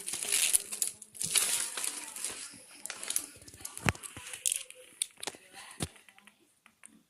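Packaging being crinkled and torn open by hand, rustling for the first few seconds, then a couple of sharp knocks as the box is handled, fading toward the end.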